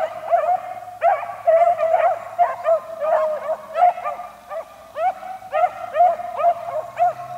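A pack of beagles baying on a rabbit's track: rapid, overlapping short yelps, several a second, from more than one hound.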